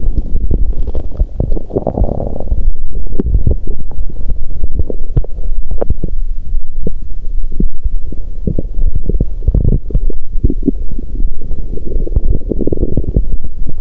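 Human stomach and bowel sounds picked up close against a woman's belly: many short gurgling pops and clicks over a low thudding, with a longer rumble about two seconds in and another near the end.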